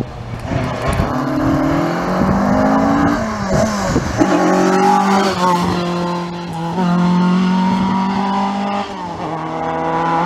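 Classic Ford Escort Mk2 rally car's engine revving hard as it accelerates along the stage, the pitch climbing through the gears with a short drop at each gear change, then holding steady near the end as the car pulls away.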